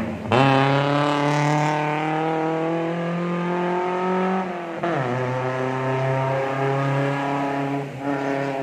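Competition car's engine revving hard as it accelerates, its note climbing steadily. The pitch drops with an upshift about five seconds in, then climbs again.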